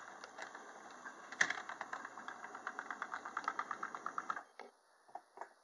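Model train cars rolling along the track, their wheels making a rapid, even clicking over a faint motor hum. The clicking stops about four and a half seconds in as the train comes to a halt.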